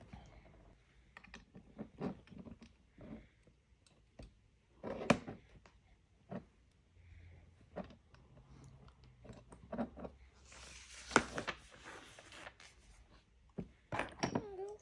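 Plastic LEGO pieces clicking and clattering as they are handled and pressed together: scattered sharp clicks at irregular intervals, with a brief spell of rustling about two-thirds of the way through.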